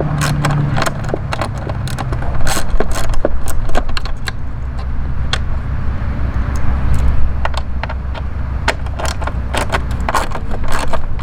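Irregular metallic clicks and rattles from hand tools and small bolts being handled over a steady low rumble, as the T25 Torx bolts holding the turn-signal bracket are undone.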